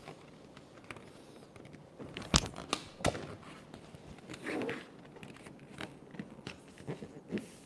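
Vinyl wrap film being handled and smoothed onto a mini fridge: light crinkling and rustling, with a few sharp clicks or snaps about two to three seconds in.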